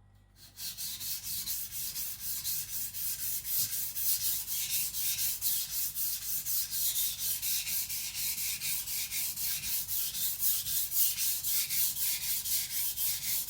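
Chinese cleaver's blade stroked back and forth on a wet whetstone, a steady rasping rub at about three to four strokes a second, starting about half a second in.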